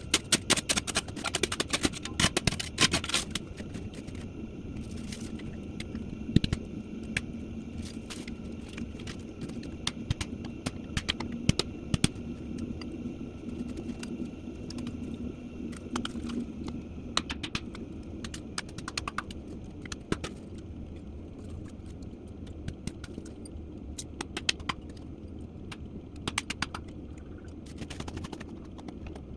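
Kindling and wood being handled in a fire pit as it is dug out and laid for a fire: scattered clicks, knocks and scraping, busiest in the first few seconds, over a steady low hum.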